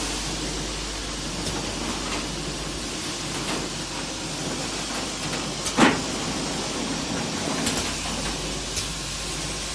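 Can-filling line's conveyor running with a steady rushing noise, square tin cans knocking against one another as they are pushed along in a row, with one louder clank about six seconds in.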